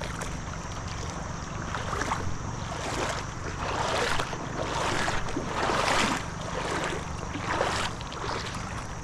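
Creek water sloshing in repeated surges, about one a second, as someone wades through it.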